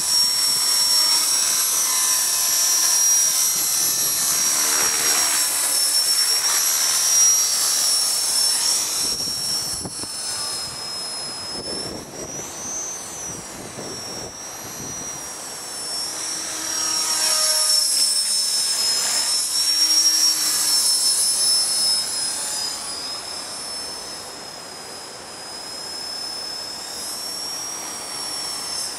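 HK-450 electric RC helicopter flying, its motor and rotor giving a high whine that wavers in pitch. It grows louder with a sweeping pitch shift as it passes close, about five seconds in and again near eighteen seconds.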